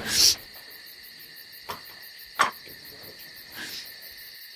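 Crickets chirping steadily, with two light knocks under a second apart near the middle.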